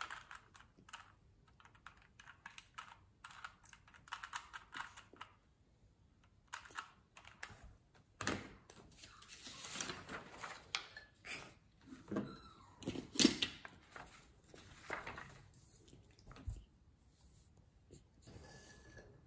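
Scattered small clicks, taps and scrapes: a metal spoon scraping and tapping a ceramic bowl of oatmeal, and a Rubik's cube being twisted. The loudest knock comes about 13 seconds in.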